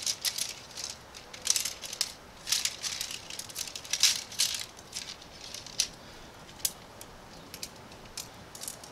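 Bundle of folded tent pole sections clicking and rattling against each other as they are handled and sorted. The clatter is busiest in the first half, then thins to scattered single clicks.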